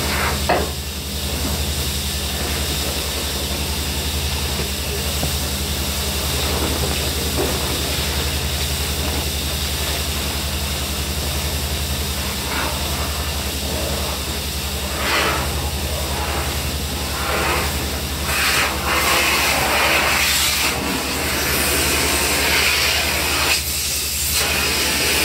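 Industrial vacuum hose sucking up spent abrasive blasting sand: a steady rushing hiss over a low machine hum, louder and harsher in stretches near the end.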